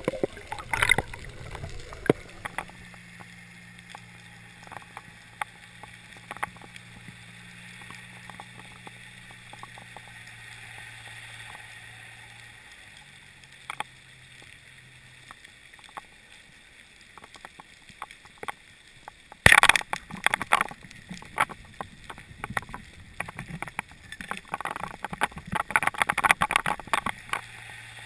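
Underwater sound picked up through a mask-mounted GoPro. A low steady hum and scattered faint clicks run through the first half. About two-thirds in a sharp loud crack is followed by bursts of crackling clicks, and these come back near the end.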